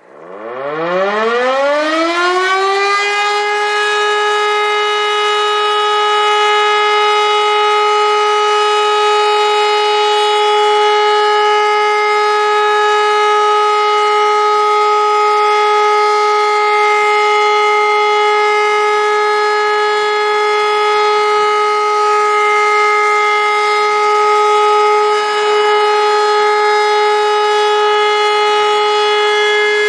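E57 electromechanical civil-defence siren starting up: its pitch climbs over about three seconds, then it holds one loud, steady tone rich in overtones.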